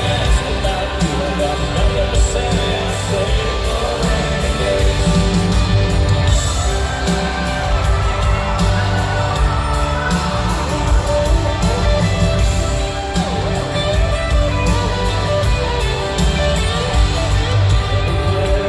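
Live country band playing a song in an arena, with a singer's voice and guitars over a steady drum beat, and crowd noise mixed in.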